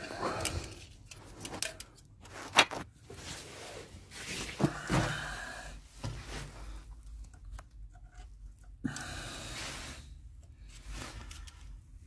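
Hand work on car parts and tools: short spells of scraping and rubbing, with a few sharp metallic clicks, the loudest about two and a half seconds in.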